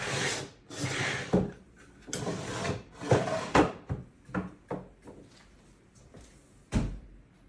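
Drawers of a watchmaker's workbench being slid open and pushed shut: several sliding rubs, each ending in a knock, then a few lighter knocks and one sharp knock near the end.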